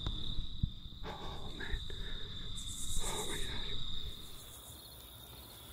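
Insects calling: a steady high-pitched drone throughout, with a brief buzzy pulsing trill about halfway through that gives way to fainter pulsing near the end.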